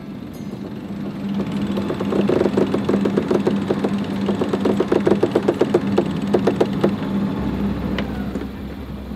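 A sailboat's inboard engine running steadily while the mainsail is hoisted, with a rapid run of ratcheting clicks from a winch, about six a second, that starts a second or two in and stops near the end.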